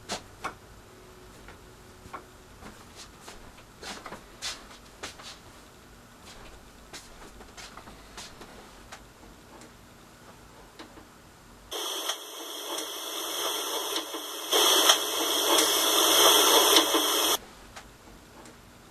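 Faint scattered clicks and ticks, then, about twelve seconds in, a loud burst of harsh static hiss that swells for about five and a half seconds and cuts off suddenly.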